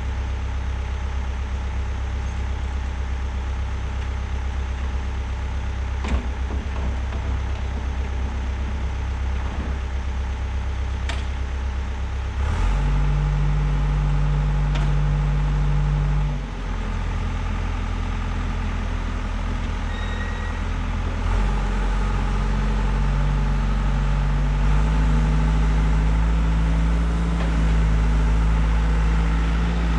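Diesel engine of a Bobcat 190 compact loader running steadily, then revving up and working harder a little under halfway in, dipping briefly, and climbing again in the second half. A few sharp knocks sound in the first half.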